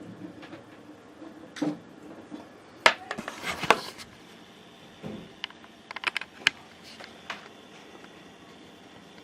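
Scattered knocks and clatter of objects being handled: a loud knock about three seconds in followed by a second of clatter, then a quick run of sharp clicks around six seconds in.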